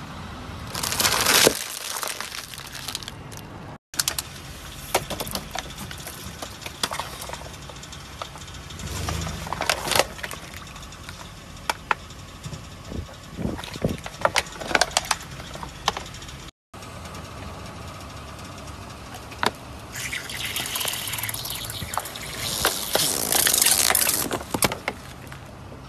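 Objects crackling and crunching as a car's tyres roll over and crush them, in several short clips: scattered sharp cracks and pops, with longer noisy crunching bursts about a second in, around ten seconds and near the end.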